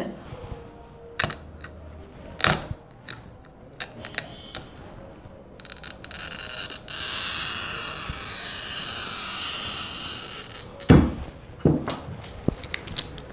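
Hand-held wheel glass cutter scoring a curved line across a clear glass sheet: a steady scratchy hiss lasting about five seconds, after a few light taps. A loud knock comes about eleven seconds in, with a few clicks after it.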